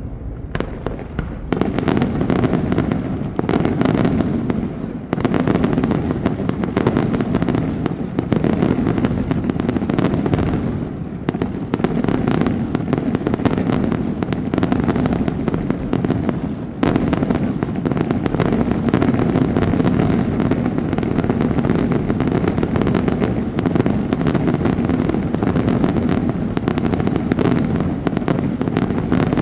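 Fireworks going off in a dense, continuous barrage of rapid bangs and crackles, easing briefly about 5, 11 and 17 seconds in.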